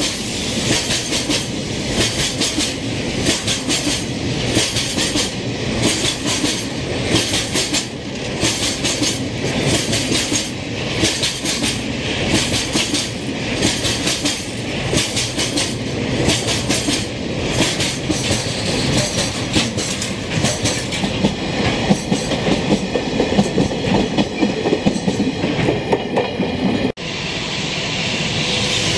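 Freight train of Taki 1000 tank wagons rolling past at close range, its wheels clacking over rail joints in a steady rhythm of paired clacks about once a second over a continuous rolling rumble. Near the end the sound cuts off abruptly to a steadier rumble.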